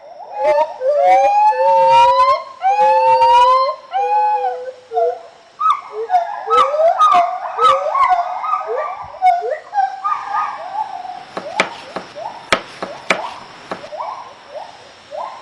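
Gibbons singing: long, loud whoops that rise and fall, turning into faster, overlapping hoots about halfway through, with a few sharp clicks in the second half.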